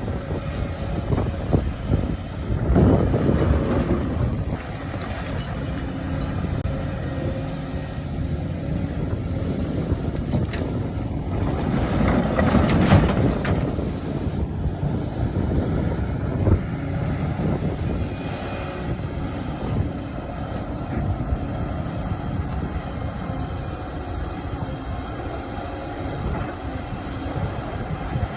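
Excavator engine running under load, swelling louder twice (around three seconds in and again near the middle), with scattered knocks and a rushing noise like wind on the microphone.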